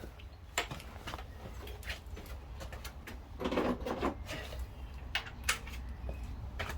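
Scattered light clicks and knocks of hand tools and parts being handled during wheel removal, with a short rustling scrape about three and a half seconds in, over a low steady hum.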